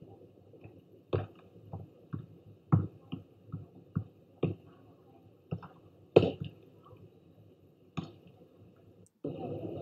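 Volleyball rally: a series of sharp slaps of hands and forearms on the ball, about a dozen at uneven spacing, the loudest a little after six seconds in.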